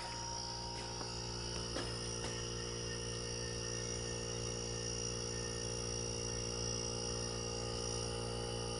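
Homemade air compressor built from a refrigerator compressor, running steadily with a low hum as it charges its 3-gallon tank.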